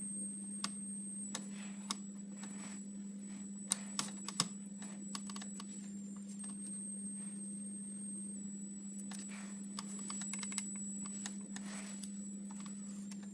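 High-pitched electronic whine from a coil on a Panasonic refrigerator's control board, which the repairman likens to a cricket and suspects comes from a bad contact. Its pitch steps slightly up and down several times over a steady low hum, with scattered clicks and taps from the board being handled and probed.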